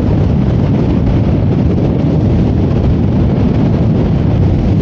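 Loud, steady wind rush on the microphone of a moving Honda ADV 160 scooter riding in a strong wind, with the scooter's running and road noise mixed in underneath.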